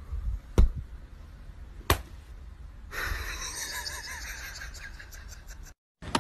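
Two sharp slaps a little over a second apart, a hand and a small dog's paw patting at each other on a woven floor mat. After them, a faint steady hiss.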